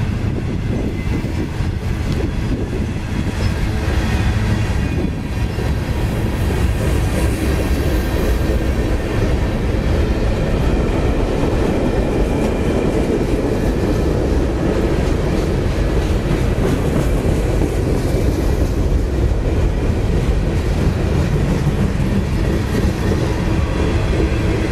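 Freight train of covered hoppers and tank cars rolling past close by: a steady, loud noise of steel wheels on the rails.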